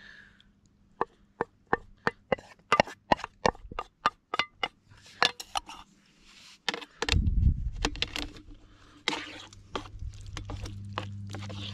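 A quick run of sharp clicks and knocks on a Trangia cook pan as egg and cheese go into the pasta, followed by a low rumble of handling and softer rustling and scraping.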